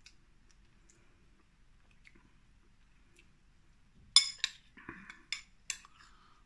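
A metal spoon clinking and scraping against a ceramic bowl. About six sharp clinks come in quick succession, starting about four seconds in.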